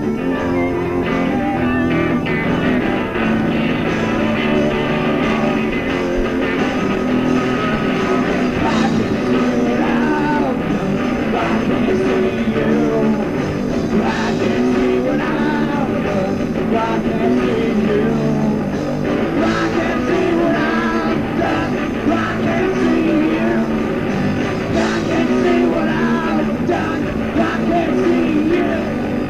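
A rock band playing a song live: electric guitars, bass guitar and drums, with a singer's voice over them.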